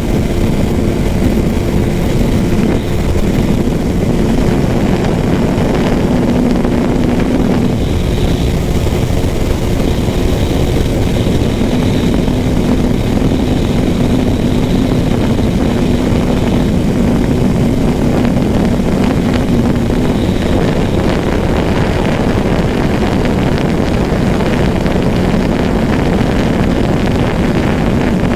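Yamaha R15M's single-cylinder engine running steadily while riding at cruising speed, its note holding nearly level with slight rises and dips, over heavy wind noise on the microphone.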